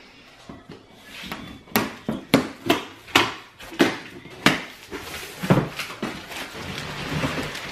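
Cardboard box being opened: scissors slit the packing tape and the flaps are pulled apart, giving a quick run of sharp snaps and crackles. Softer rustling and knocks of the cardboard follow.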